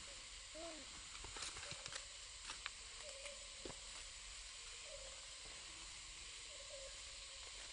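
Faint outdoor background: a steady hiss with short, faint squeaky calls every second or so and a few light clicks and rustles.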